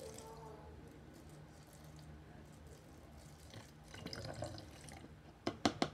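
Soapy pink liquid being poured slowly into a plastic water bottle, a faint pouring and dripping sound, with a few sharp clicks near the end.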